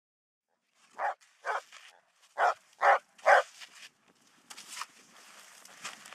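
English springer spaniel barking five times in quick succession, two barks and then three. About a second later comes a quieter scraping and crunching of a snow shovel in snow.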